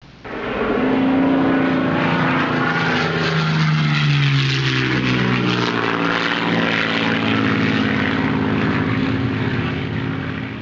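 Propeller-driven aircraft engine running loudly; its pitch drops about three seconds in, then it runs steadily and fades near the end.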